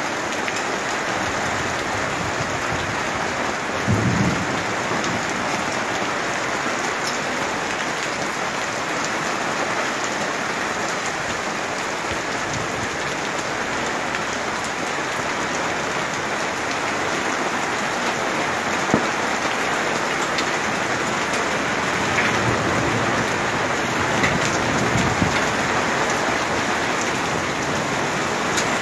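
Heavy rain pouring steadily onto a flooded street and pavement, a continuous dense hiss. A brief low thump about four seconds in, with a few fainter ones later.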